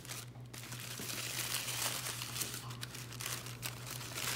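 Packaging crinkling and rustling in irregular bursts as a wrapped succulent cutting is handled and unwrapped by hand, over a steady low hum.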